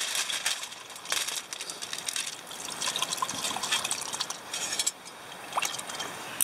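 Liquid poured from a bottle into a cup, over many small crackles and pops from burning charcoal in a shichirin grill.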